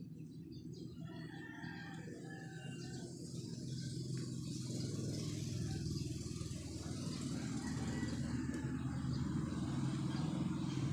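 A steady low engine hum that grows louder over the first half and then holds, with birds chirping in the first few seconds.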